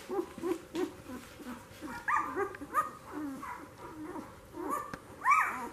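Week-old F1 Goldendoodle puppies squeaking and whimpering, many short rising-and-falling squeaks from several pups overlapping, loudest near the end.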